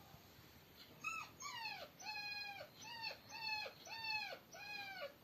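A dog giving a quick run of about seven high, whining yelps, each holding its pitch and then dropping off at the end.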